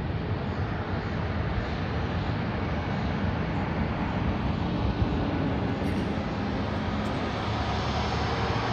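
Airbus A320neo's CFM LEAP-1A turbofans running at taxi power as the jet rolls along the taxiway after landing: a steady rushing rumble. Near the end a high engine whine grows in as the aircraft turns toward the microphone.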